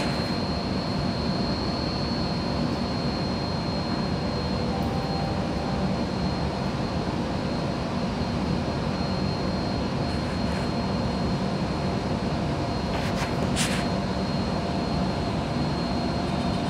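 Steady hum of a Bombardier C951 metro train standing at a station platform with its doors open, with a thin, steady high whine over it. A brief hiss about thirteen seconds in.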